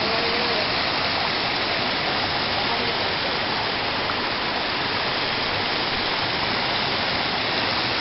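Whitewater rushing and foaming over boulders below a waterfall: a steady, even rush of water with no breaks.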